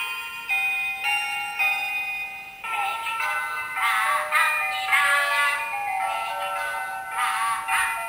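Pororo birthday-cake toy playing its electronic music: a short tune of held notes, then a children's song with thin synthetic-sounding singing starting about three seconds in.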